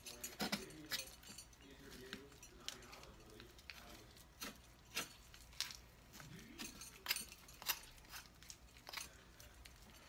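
Knife blade scraping raw chicken thigh meat off the bone on a plastic cutting board: faint, irregular clicks and taps.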